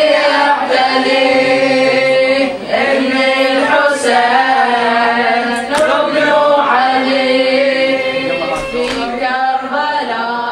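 A boy's voice chanting an Arabic Muharram elegy (latmiya), drawing out long wavering melodic lines.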